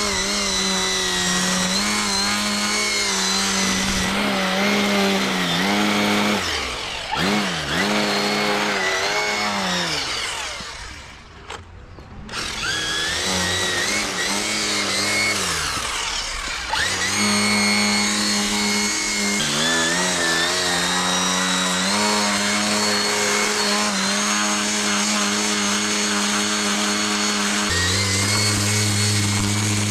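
Lawn edger running with its blade cutting along a concrete curb edge. It winds down and almost stops about eleven seconds in, then speeds back up and runs steadily again.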